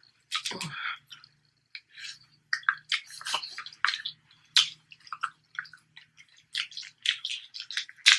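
A person eating: a run of irregular wet smacking, sucking and chewing sounds, many short sharp clicks with no set rhythm.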